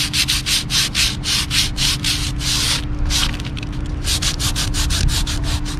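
Sandpaper rubbed by hand in quick back-and-forth strokes, about five a second, over the surface of a sailboat's outboard rudder. The strokes break off for about a second near the three-second mark, then resume.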